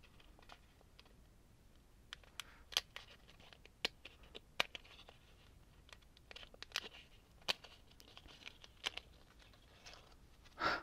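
Faint scattered clicks and light scraping as a freshly cast model car body and its small cast parts are handled and pried out of a flexible mold by hand, with a louder rustle near the end.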